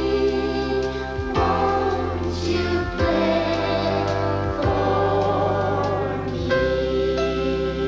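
A song sung by a group of voices together over instrumental backing, with a bass line stepping to a new note every second or so.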